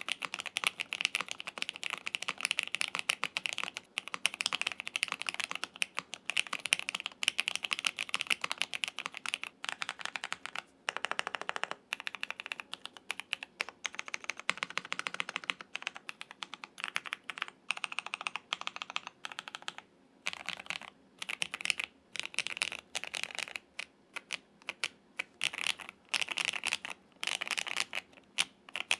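Typing on a QK65 custom mechanical keyboard fitted with L&F Cotton Candy tactile switches, an aluminium half plate, PE foam and GMK keycaps. A quick run of keystrokes gives way, in the second half, to slower, separate key presses.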